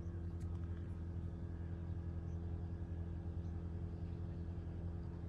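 Steady low hum of an engine running, even and unchanging.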